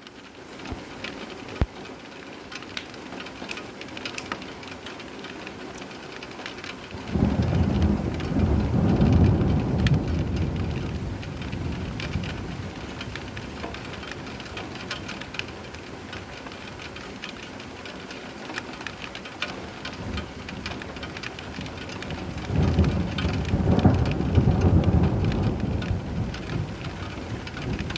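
Steady rain falling, with two rolls of thunder. The first starts suddenly about seven seconds in and rumbles low for several seconds before fading; the second swells near the end.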